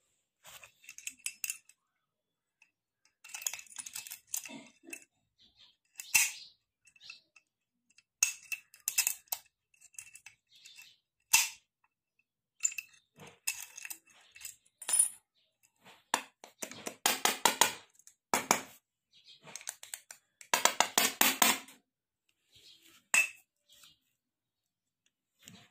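Small steel padlock and its key being handled: bursts of metallic clicks and clinks as the key is worked in the lock, with two longer spells of rattling, and the lock put down on a hard surface near the end.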